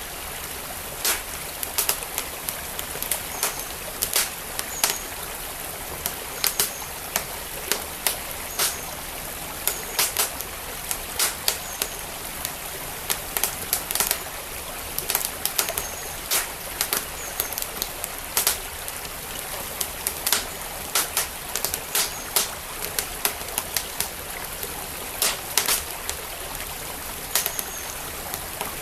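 Wood fire crackling, with sharp irregular pops and snaps, over the steady rush of a flowing stream.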